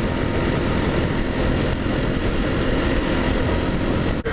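Single-cylinder Honda dual-sport motorcycle engine running steadily while riding, under a heavy rush of wind on the helmet-mounted microphone. A brief sudden dropout near the end.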